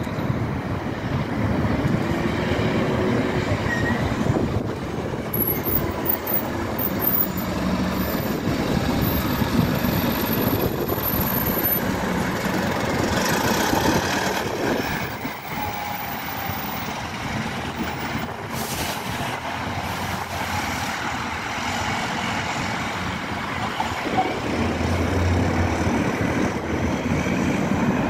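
Buses manoeuvring through a bus station: their engines run steadily as they drive and pull away, under a continuous traffic rumble.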